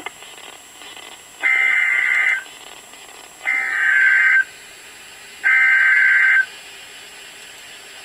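Emergency Alert System SAME header from a NOAA Weather Radio stream: three bursts of warbling digital data tones, each about a second long and two seconds apart, encoding the severe thunderstorm warning. A short click comes just before them.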